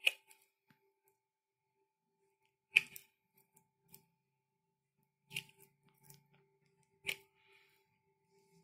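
Five sharp metallic clicks, two to three seconds apart, from a hand chuck gripping an intramedullary pin as it is twisted through a dog's tibia, over a faint steady hum.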